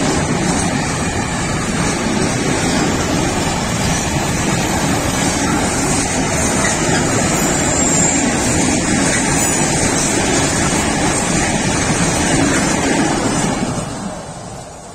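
Freight train of open gondola wagons rolling past at speed: a loud, steady noise of wheels on the rails that fades away over the last second or so as the end of the train passes.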